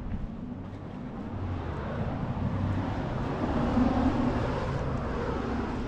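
A vehicle driving past, its noise growing louder to a peak about four seconds in and then easing off.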